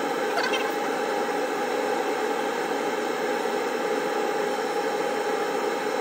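Laser engraving machine running steadily as it engraves a metal Zippo lighter: an even whirring hiss with a few steady tones, and a faint tick about half a second in.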